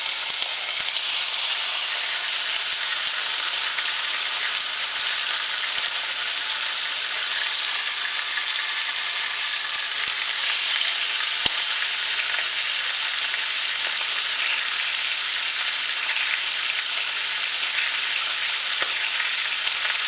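Boneless pork cuts frying in a hot pan, a steady sizzle as their fat melts and crisps. A single sharp click sounds about halfway through.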